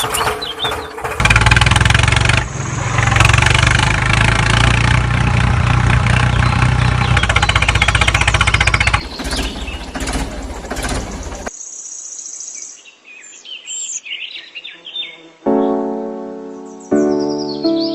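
A steady engine-like rumble with a noisy hiss over it that fades out about ten seconds in, followed by bird chirps. A tune with clear, repeated notes comes in near the end.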